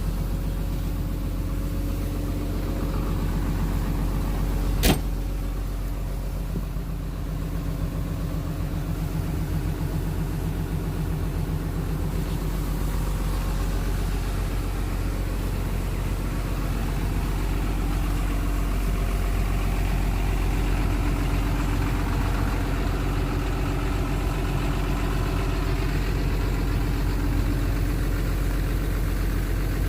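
Sunward excavator's diesel engine idling steadily, with one sharp click about five seconds in.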